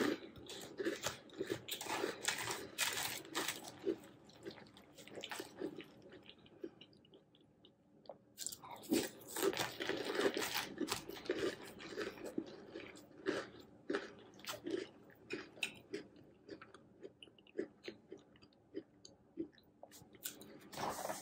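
Close-up chewing of crunchy hot cocoa cereal with marshmallows in milk: a mouthful crunched with many small crackles, a sparser lull about five to eight seconds in, then another run of crunching and scattered chews.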